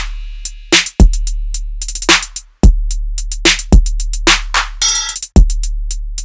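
Background music: an electronic drum-machine beat, with deep bass kicks that start about every second and a half and die away, and quick ticking hi-hats over them.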